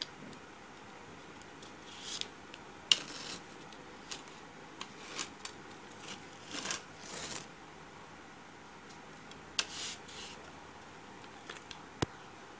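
Paper sheet rustling and scraping as it is handled and slid across a workbench, in short scratchy spells with pauses between, and a sharp tap near the end.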